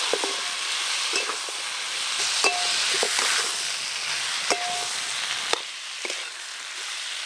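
Salted hilsa, potatoes and taro sizzling in spice paste in a metal karai, being fried down (kosha) while a metal spatula stirs. The spatula scrapes and knocks against the pan about six times, some knocks ringing briefly.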